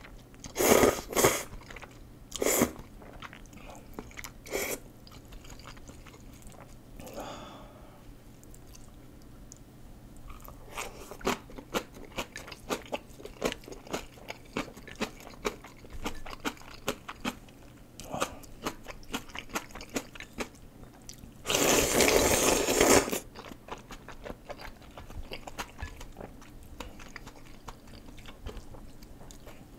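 Close-miked eating of curry instant noodles: a few short loud slurps near the start, then a long run of wet chewing with many small clicks, and one long loud slurp of about a second and a half about two-thirds of the way through.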